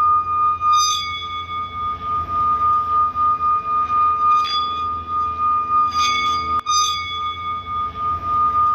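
Sound-healing music: one steady, ringing high tone is held throughout over a low hum. Bright struck bell-like notes sound about a second in, again around the middle, and twice close together near the end.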